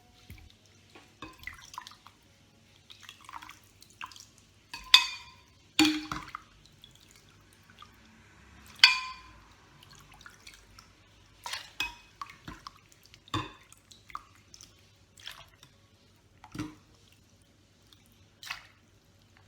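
Scattered knocks, clinks and small liquid splashes as fruit and juice are loaded into a blender jar, the loudest three clinks about 5, 6 and 9 seconds in, each ringing briefly.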